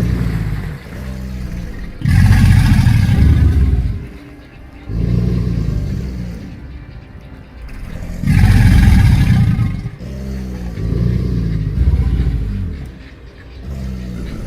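American alligator bellowing, the mating-season call: a series of about seven deep, rumbling bellows, each one to two seconds long, with short pauses between them.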